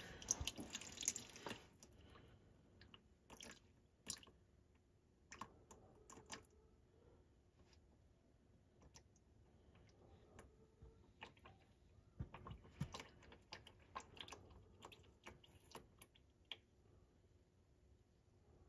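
Faint splattering and dripping of milky, water-contaminated engine oil pouring from an oil pan's drain hole into a puddle, with scattered small drips and ticks. The milky mix is the sign of water in the engine oil.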